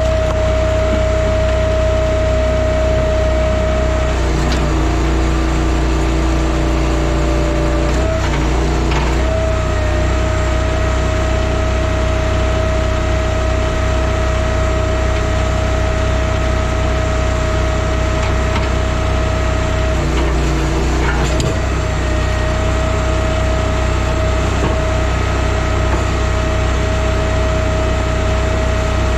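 Timberwolf Alpha 6 hydraulic log splitter's engine running steadily. Twice the engine drops in pitch and labours as the hydraulics take load on a log, and each time ends with a few sharp knocks of wood splitting.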